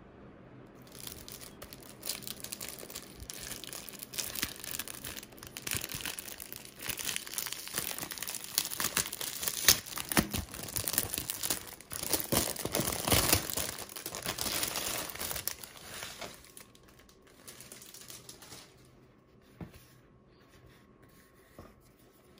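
Clear plastic packaging bag crinkling and crackling as it is handled and opened by hand. The dense crackle starts about a second in, is loudest around the middle, and thins out near the end to a few soft handling sounds.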